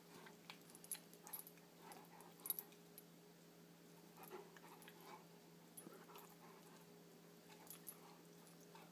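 Faint play fighting between a Greater Swiss Mountain Dog and a cat: scattered short clicks and scuffles with soft dog noises, the sharpest click about two and a half seconds in, over a faint steady hum.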